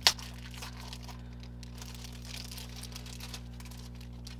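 Plastic sleeve and paper sticker sheets being handled: a sharp crackle right at the start, then soft, scattered crinkling and rustling.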